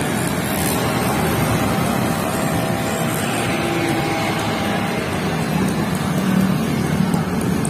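Steady din of busy city road traffic, with motorbikes and auto-rickshaws running past.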